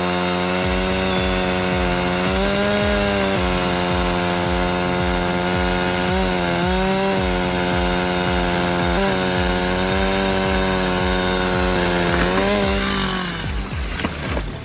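Chainsaw running at high speed with a steady high pitch. The pitch rises briefly four times, and the saw dies away about a second before the end.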